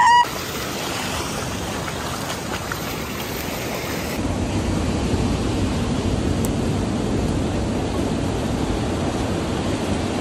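Surf surging and washing over rocks in shallow water, with a brief voice-like cry right at the start. About four seconds in, the sound cuts abruptly to a steadier, deeper rushing noise.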